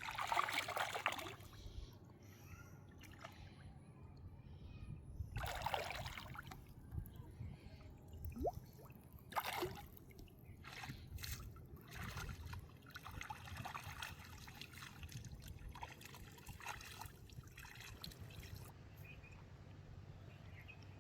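Shallow river water splashing and sloshing in irregular bursts, the loudest at the start, about five seconds in and about nine seconds in, with smaller splashes and trickling between them.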